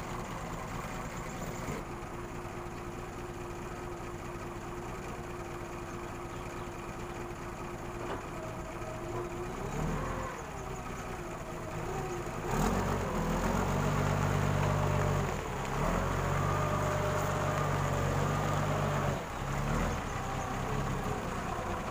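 Large forklift's engine idling steadily, then revving up about halfway through and running louder and heavier as the forklift drives off, with two brief drops in revs near the end.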